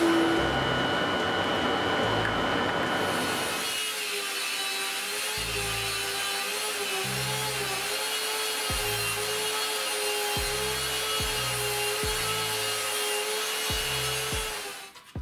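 Belt sander clamped upside down in a bench stand, running with a steady whine whose pitch wavers slightly as the end of a wooden board is pressed against the belt. For the first few seconds a louder rushing noise is heard instead.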